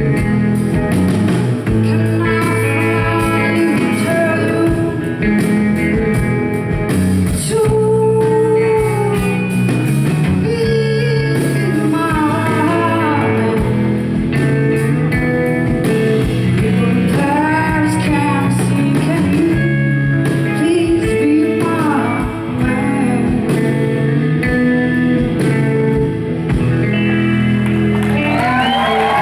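Live rock band playing, with electric guitar and a woman singing.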